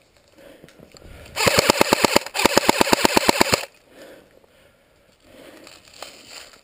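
Airsoft electric rifle (CYMA CM042S, an AK-47S replica) firing two full-auto bursts of rapid, evenly spaced shots, the first under a second and the second just over a second, with a brief pause between them.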